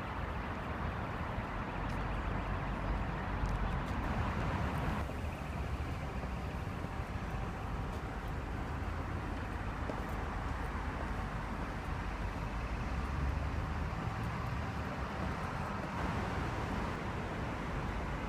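Steady vehicle rumble, with no speech, changing abruptly about five seconds in.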